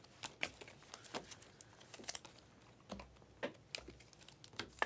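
Soft, irregular clicks and ticks of glossy Panini Prizm trading cards being slid off a stack and shuffled by hand.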